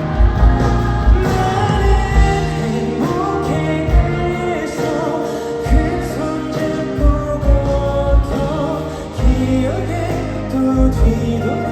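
Live pop ballad: a full band with a kick drum beating under sustained chords, and a singing voice weaving over it.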